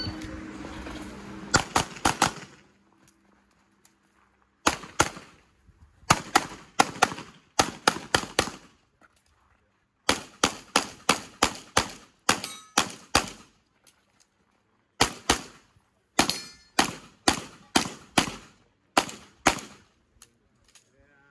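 Handgun shots fired rapidly in an IPSC stage: a long run of sharp cracks, mostly in quick pairs and short strings of three to five, with brief pauses between groups as the shooter moves between positions, each shot ringing briefly.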